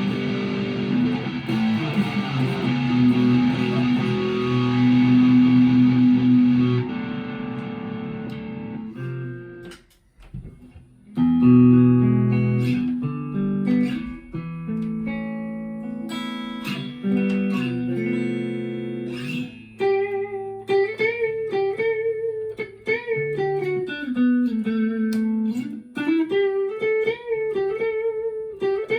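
Chapman ML3 Thinline Pro Classic electric guitar played through a Harley Benton Tube15 valve amp. Ringing strummed chords for about nine seconds, a brief drop about ten seconds in, then picked chords, and from about twenty seconds in a single-note melody.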